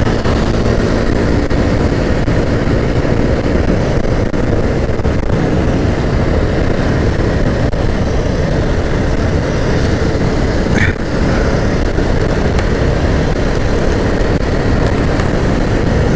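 Motorcycle riding at road speed: a steady rush of wind on the microphone over the running engine, with a brief higher-pitched blip about eleven seconds in.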